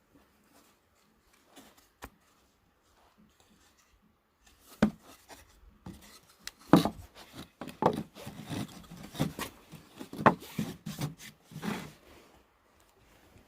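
Close handling noises: a run of rubbing, scraping and light knocks of objects being moved about, starting about four seconds in and stopping shortly before the end.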